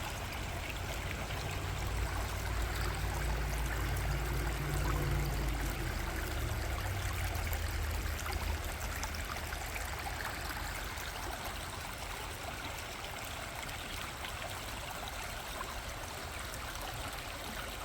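Small stream running and trickling steadily over rocks. A low rumble underlies the first half and fades out.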